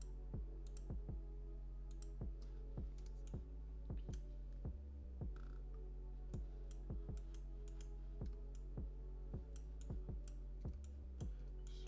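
Background music: a steady beat over held chords.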